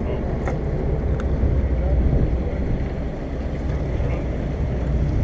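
Charter fishing boat's engine running steadily, a low rumble, with a couple of light clicks in the first second or so.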